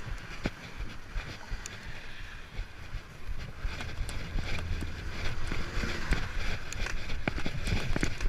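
Wind buffeting the microphone with a low rumble, over a ridden downhill mountain bike's scattered clicks and rattles; it gets louder about three and a half seconds in.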